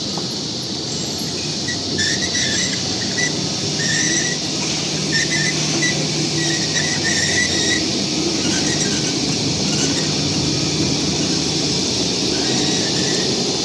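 Tube roll forming machine running steadily, a constant hiss over a low hum. Short high squeaks come and go for several seconds, from about two seconds in.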